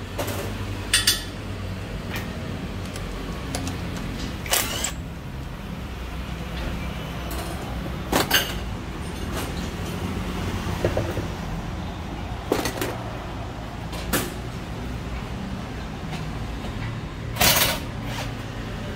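Scattered short metallic knocks and clanks of a car wheel being taken off, the lug nuts and tyre being handled, over a steady low hum.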